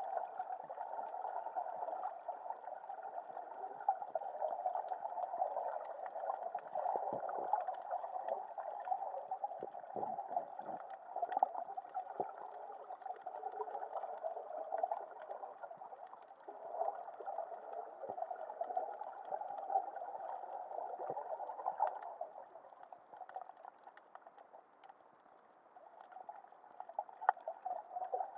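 Underwater ambience heard from a camera below the surface: a steady, muffled water rush with scattered clicks and pops. It dips quieter for a few seconds about three-quarters of the way through.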